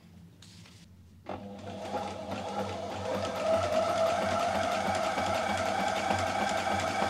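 Reliable Barracuda walking-foot sewing machine starting up about a second in and speeding up to a steady, rapid stitching rhythm. It is sewing a zigzag stitch through nine layers of cloth.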